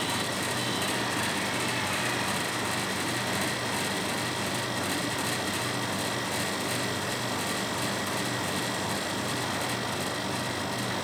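Steady background hiss with a faint low hum, unchanging throughout.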